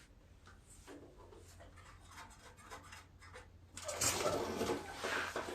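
Metal parts and tools clicking and scraping while a bolt is worked into the starter-generator bracket of a Wheel Horse garden tractor. A louder burst of scraping and rattling starts about four seconds in and lasts about a second and a half.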